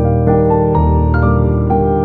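Background music: a piano playing a gentle melody over held chords, new notes coming in about every half second.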